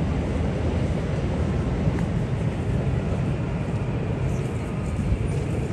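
City street ambience: a steady low rumble of road traffic and general urban noise.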